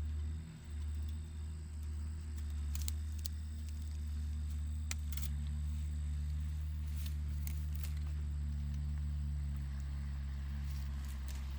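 John Deere 7610 tractor's six-cylinder diesel engine running at a steady speed, with a few faint clicks and rattles over the drone.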